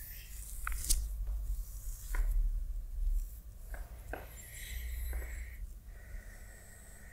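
Clothing and body rustling and rubbing against a yoga mat as a person lying on their back rocks from side to side, with a few soft sharp ticks scattered through it.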